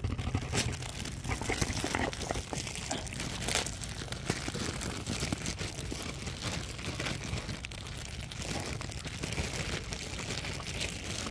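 Dry grass rustling and crackling right against a phone's microphone, a dense, irregular run of small crackles.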